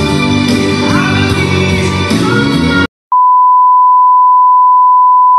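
A group of singers performing to an instrumental backing, cut off suddenly about three seconds in. After a brief gap, a steady single-pitch test-tone beep of the kind played with TV colour bars starts and holds.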